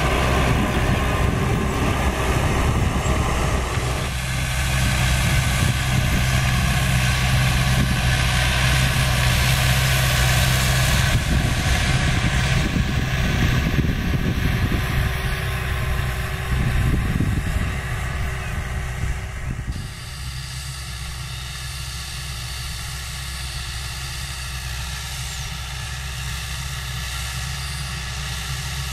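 New Holland TD95D tractor's diesel engine running steadily under load while pulling a 44-disc Tatú offset harrow through soil. About two-thirds of the way through, the engine sound drops to a quieter, more distant drone.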